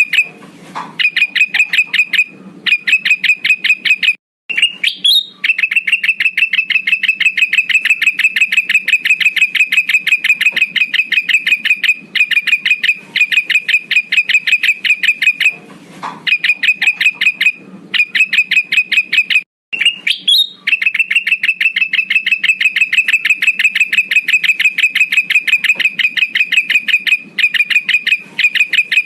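Male kutilang emas (a bulbul) lure call: a rapid, even chatter of high notes, about ten a second, broken twice by a short rising note. It is a looped recording played to call rival males.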